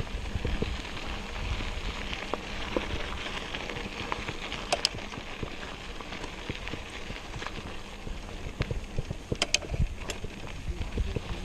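Bicycle riding: steady rolling tyre noise with fine crackle and rattle, wind buffeting the microphone, and a few sharp clicks about five and nine and a half seconds in.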